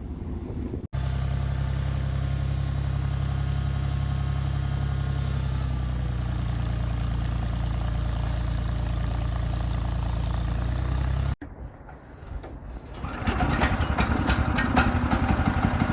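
Small gasoline engine of a Woodland Mills HM122 portable bandsaw mill running at a steady speed. After a brief drop about eleven seconds in, a louder, rougher sound takes over: the engine under load with the band blade cutting into the log.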